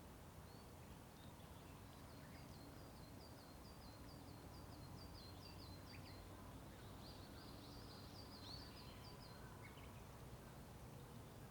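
A small songbird faintly sings a quick run of high, repeated chirps, about four a second, then a busier tangle of high notes, over a steady low rumble of distant road traffic.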